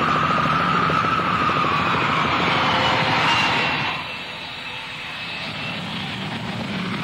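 Boeing 727 on its landing roll just after touchdown: its three JT8D turbofan engines run loud with a high, slowly falling whine. About four seconds in the engine noise drops off as the jet slows down the runway.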